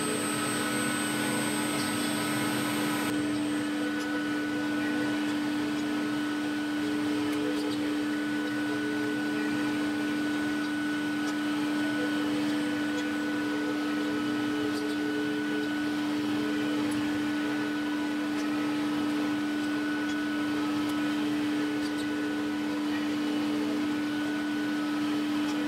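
Steady hum of running workshop machinery in a CNC woodworking shop: a constant drone with a few higher steady tones above it. A very high thin whine in the mix cuts out about three seconds in.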